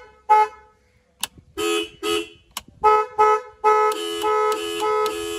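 Car horns, a Minda trumpet horn and a Minda diaphragm horn worked through a two-way switch, sounding in short honks: one near the start, two more after a pause, then a quick run of honks in the second half. Two sharp clicks fall between the honks.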